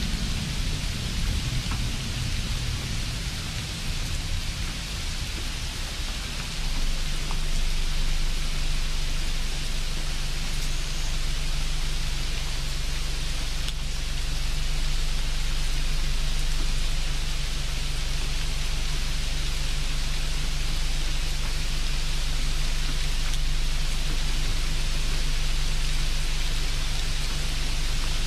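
A steady, even hiss with a low hum beneath it, stepping up a little in level about six and a half seconds in.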